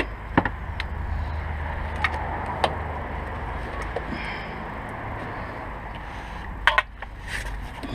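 Hand tools clinking and knocking against metal parts of a car, a few separate sharp knocks with the loudest a quick pair near the end, over a steady low hum.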